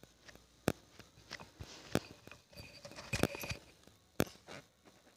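Faint room sound with a few sharp, short clicks and soft knocks scattered through it.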